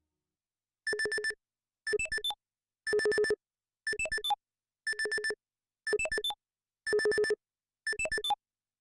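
Korg Minilogue XD analog synthesizer playing a dry factory preset: a short cluster of rapid, high bleeping notes repeated about once a second, eight times, with silence between clusters.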